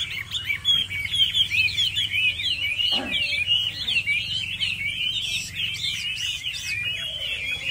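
Chinese hwamei (họa mi) singing a long, unbroken run of fast, varied whistled phrases.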